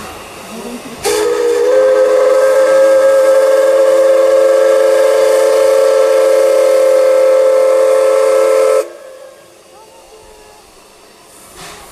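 Chime steam whistle of the C11 227 steam locomotive dressed as Thomas the Tank Engine, blown in one long blast of about eight seconds. Several tones sound together as a chord, starting about a second in and cutting off sharply.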